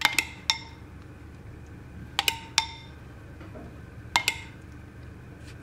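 A kitchen utensil clinking against a dish: three quick groups of sharp, ringing taps as ingredients are scooped out and poured in.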